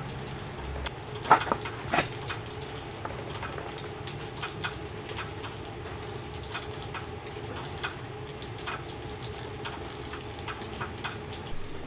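A metal grill guard insert knocks twice against a tractor brush guard frame as it is seated, about a second and two seconds in, followed by faint small ticks and scrapes of handling over a low steady hum.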